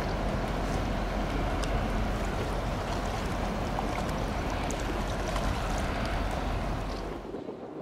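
A large cruise ship passing close by: a steady low engine rumble mixed with the rush of water along its hull and wake. It drops away suddenly near the end.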